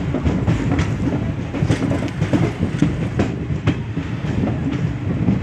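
Indian passenger train in motion, heard from its own coach window: a steady low rumble of the running coach with frequent sharp clicks of the wheels over the rails.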